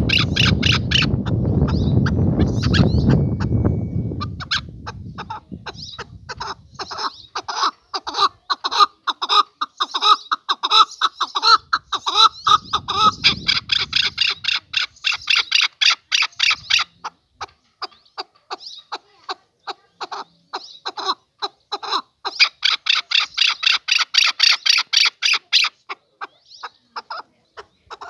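Male chukar partridge calling: long runs of rapid, repeated clucking notes that swell and fade, loudest about a third of the way in and again near the end. A low rumble fades out over the first few seconds.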